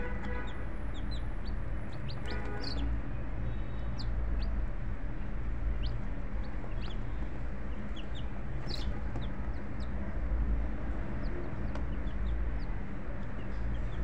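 Hens clucking, with many short high chirps scattered through it and a steady low rumble underneath.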